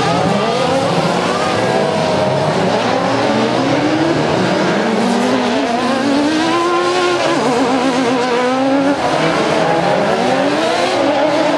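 Several autocross racing buggies on a dirt track, their engines revving hard all at once. The pitches of the engines overlap, rising and falling as they accelerate and shift through the bends.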